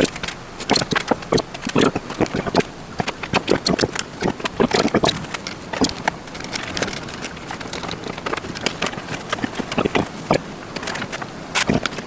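Rapid, irregular clicks and knocks of plastic and metal parts being handled while a clock radio is taken apart and rewired. They thin out for a few seconds in the middle, then pick up again near the end.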